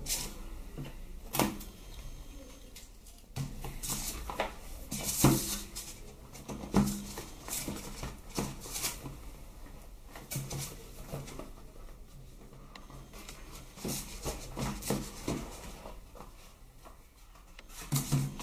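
Cardboard tablet box being handled: scattered taps, scrapes and rustles as it is turned over in the hands and its lid is pulled off.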